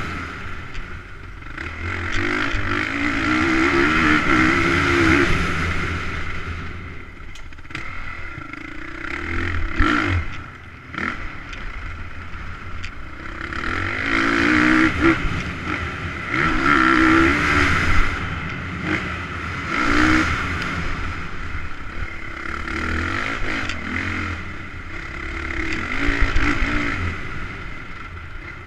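Motocross bike engine heard onboard, revving up hard and easing off again and again through corners and jumps, with a few sharp knocks along the way.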